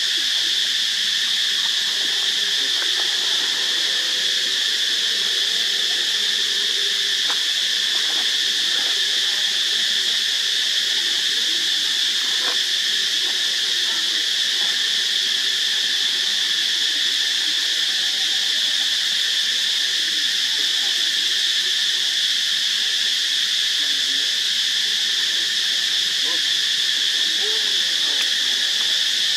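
A steady, unbroken, high-pitched drone of insects that holds the same pitch and level throughout.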